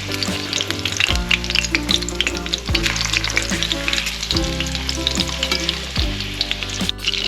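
Thin beer-battered croaker fillets sizzling and crackling as they fry in hot avocado oil, with background music carrying a steady beat underneath.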